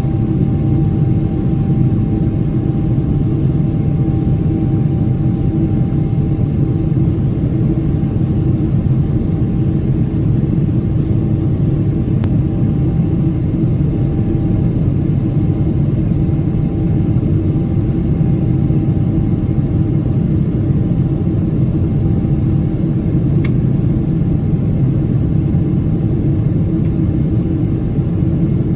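Steady deep roar of a Boeing 777-300ER's GE90-115B engines and airflow, heard inside the cabin at a window beside the engine while the airliner climbs. A faint steady whine runs under it and fades out about two-thirds of the way in.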